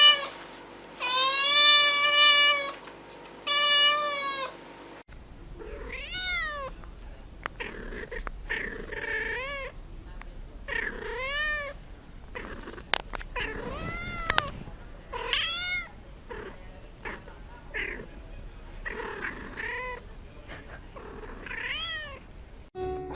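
Domestic cats meowing: two long, loud meows held at a steady pitch in the first few seconds, then after a cut a cat giving about a dozen shorter, quieter meows that rise and fall in pitch, one every second or two.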